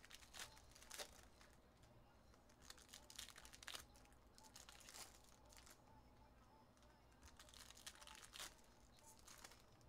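Faint crinkling and tearing of trading-card pack wrappers as packs are opened and handled, in several short bursts.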